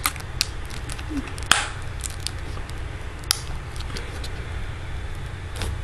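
Scattered small clicks and taps of a clear hard-plastic iPod Touch case being pressed and fitted by hand, about a second and a half in the loudest, over a low steady hum.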